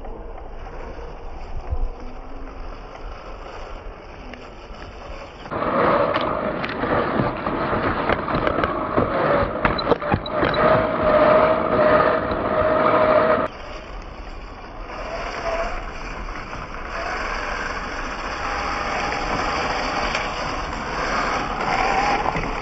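Electric drivetrain of a Traxxas TRX-4 scale RC crawler, a Hobbywing Quicrun Fusion brushless motor and gearbox, whining as it drives over dirt, with small clicks and rattles. From about five seconds in to about thirteen seconds it is louder and closer, with a steady whine, heard from a camera mounted on the truck's bonnet.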